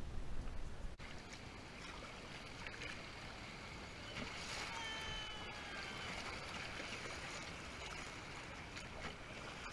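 Water rushing and lapping along a kayak's hull as it moves down the creek, a steady even wash. About halfway through, a faint drawn-out tone slides slightly down in pitch for over a second.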